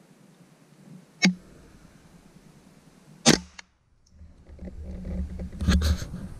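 Two sharp gunshots from a hunting gun about two seconds apart, the sound cutting out briefly after the second. Rustling and a few handling clicks from the gun follow near the end.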